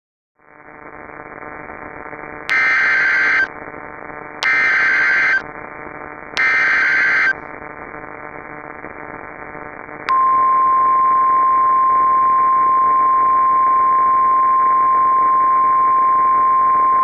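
Emergency Alert System activation in NOAA Weather Radio style: a steady radio hiss fades in, then come three one-second screeching bursts of SAME header data. About ten seconds in, the steady single-pitch 1050 Hz warning alarm tone begins and holds. This sequence signals that a new warning is about to be broadcast.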